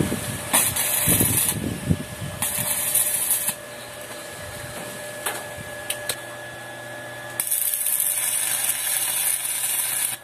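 Electric arc welding on a steel motorcycle swing arm: the arc crackles and sizzles in three bursts, two short ones of about a second each, then a longer one of about three seconds that cuts off abruptly at the end.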